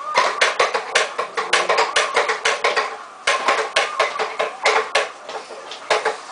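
A toddler's toy push walker clacking and rattling as it rolls over a hardwood floor: rapid, uneven clicks from its wheels and toy parts, pausing briefly twice as it stops and starts.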